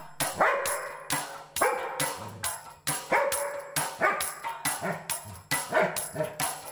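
Golden retriever barking over and over at a mouse caught in a wire cage trap, about two barks a second.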